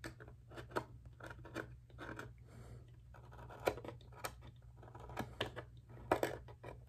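Hobby knife blade scraping and shaving burrs off the freshly cut edge of a clear polycarbonate RC car body: a run of short, irregular scratches and small clicks, with a few sharper ones in the second half.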